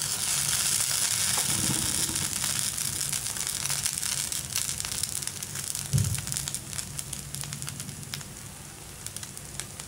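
Batter sizzling and crackling in the oiled wells of a kuzhi paniyaram pan, slowly getting quieter. One soft low thump comes about six seconds in.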